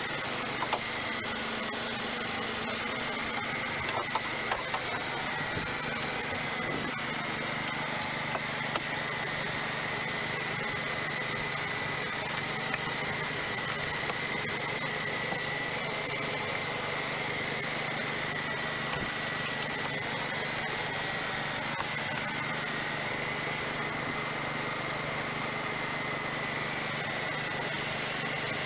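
A steady machine running, with a constant high whine and a low hum, and a few light clicks in the first several seconds.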